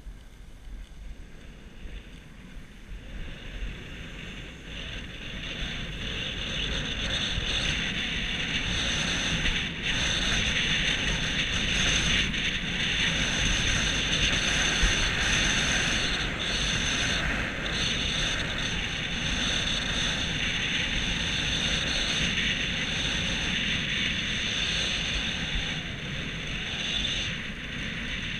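Steady hiss of sliding fast over packed snow on a ski run, with wind rushing over the camera microphone. It grows louder over the first several seconds and then holds steady.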